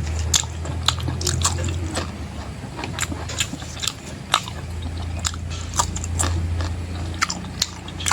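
A person chewing spicy mutton skin close to the microphone, with wet crunches and sharp mouth clicks coming irregularly, a few each second.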